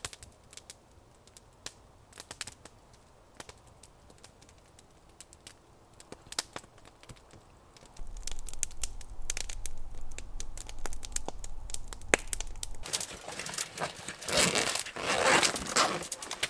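Campfire crackling with sparse pops. About halfway a louder stretch begins with a low rumble and scattered clicks. Near the end comes a loud crinkling rustle of a plastic bag being handled inside a backpack.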